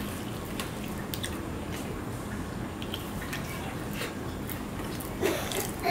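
Fingers squishing and mixing rice with mashed okra and potato on a steel plate, with faint scattered wet clicks, followed by eating from the hand. Near the end comes a short louder sound.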